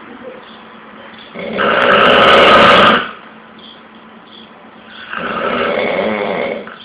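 A person snoring loudly, with two long rasping snores about three and a half seconds apart.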